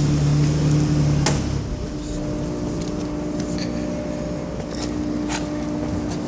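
A steady mechanical hum, with a lower rumble that drops away about a second and a half in, and a sharp click just before that.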